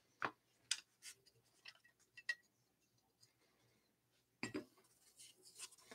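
Faint, scattered clicks and taps of a hard clear plastic card case being handled: the lid coming off and being set down, and the cards being lifted out of their foam insert, with a pair of clicks about four and a half seconds in.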